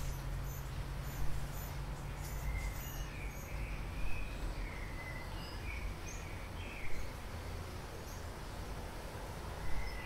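Outdoor ambience with small birds chirping intermittently, over a steady low rumble, with a short soft bump about every three seconds.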